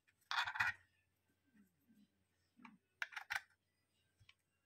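Plastic handling clicks of an OBD diagnostic interface being moved on a silicone mat and a USB cable being plugged into it: a brief scraping rustle near the start, then a quick cluster of clicks about three seconds in.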